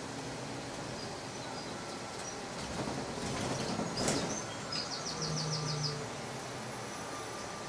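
Inside a moving city bus: steady ride noise, with a hiss that swells to a peak about four seconds in, followed by a quick run of high chirps.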